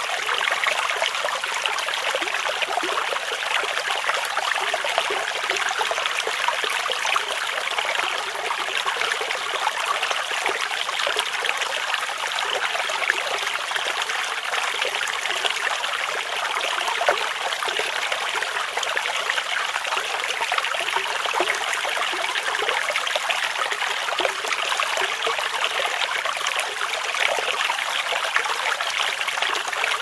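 Shallow stream flowing over stones, a steady light rushing and trickling of water with little deep rumble.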